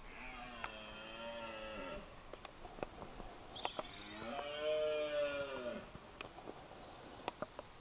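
Red deer stag roaring during the rut: two long, deep, moaning roars a couple of seconds apart, the second louder. A few short sharp clicks sound between and after them.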